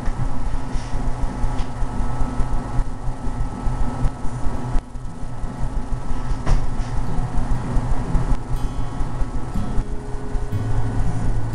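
A steady low mechanical rumble with a few faint clicks; near the end a sustained low tone comes in.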